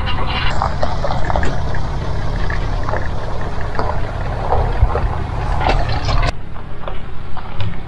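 A motor running with a steady low rumble, with scattered knocks and rattles over it; the sound changes abruptly about six seconds in.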